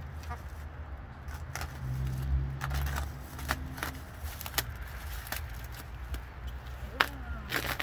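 Bubble wrap crinkling and crackling in scattered sharp snaps as it is cut and pulled open with a box cutter, over a steady low rumble.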